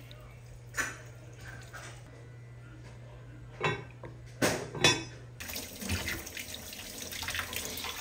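Water poured from a pitcher into a cast-iron pot, then the pot's heavy lid set on with a few clanks around four to five seconds in, over a steady low hum. Then a tap runs into a stainless steel sink, with water splashing on hands and bowls.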